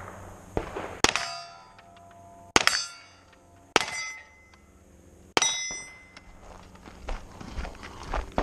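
Pistol shots at steel plate targets, four in a row about a second and a half apart, each hit answered by the steel plate ringing and fading.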